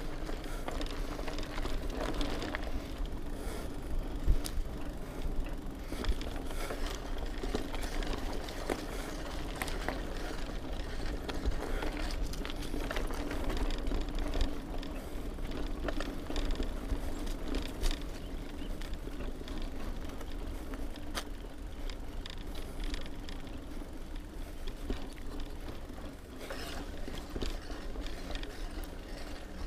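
Mountain bike riding along a dirt singletrack trail: tyres rolling, with frequent short rattles and clicks from the bike over bumps and a ratcheting tick from the freewheel hub.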